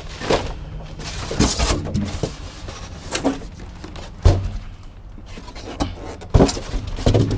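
Scrap items being handled and loaded into a pickup truck bed: about five separate knocks and bangs over a low steady hum.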